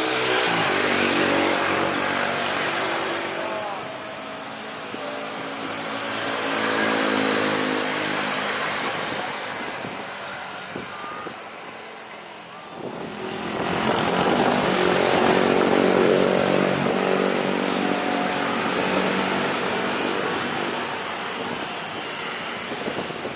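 Airbus A330's twin jet engines running as the airliner taxis and lines up, then swelling sharply about 13 seconds in as take-off thrust is applied with the exhausts facing back toward the listener, and slowly easing off as it accelerates away down the runway.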